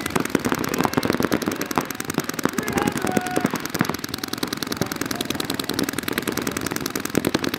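Several paintball markers firing rapid, overlapping streams of shots: dense, continuous popping many times a second.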